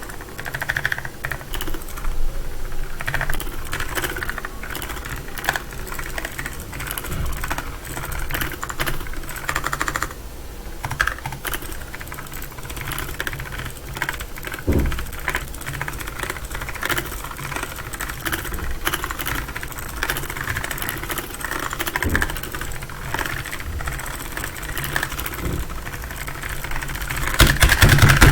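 Typing sound test on a PICTEK tenkeyless mechanical keyboard with blue switches: a fast, continuous run of clicky keystrokes, getting louder near the end.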